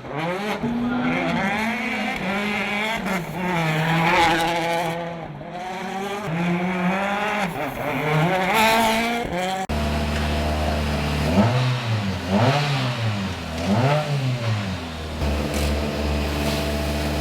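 Citroen DS3 WRC rally car's turbocharged 1.6-litre four-cylinder engine revving hard, its pitch climbing and dropping again and again through gear changes. About ten seconds in the sound cuts to a second shot, with three short rev rises over a steadier hum.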